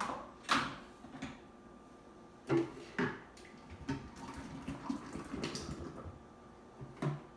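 A blended protein shake gurgling as it is poured from a blender jar into a bottle, with a few sharp knocks as the jar is lifted off its base and knocked against the bottle.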